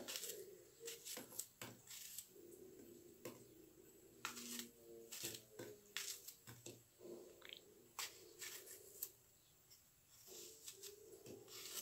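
Small paring knife cutting chunks off an apple held in the hand: a string of faint, irregular crisp cuts and small clicks.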